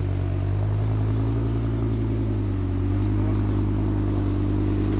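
Off-road trial rock crawler's engine running at low, steady revs, the pitch lifting slightly about halfway through.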